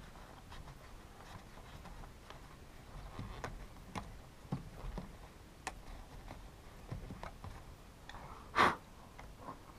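Scattered small clicks and taps of plastic and metal chainsaw parts being handled and fitted during reassembly, with one short louder puff of noise near the end.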